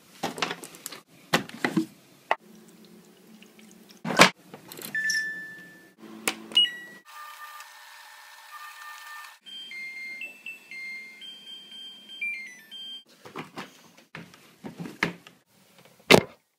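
Front-loading washing machine being loaded and started: door and cupboard knocks and clicks, single control-panel beeps, then a short tune of stepped electronic beeps from the machine.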